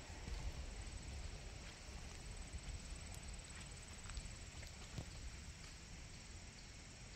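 Faint, irregular footsteps and small knocks over a low wind rumble on the microphone, with a thin steady high whine underneath.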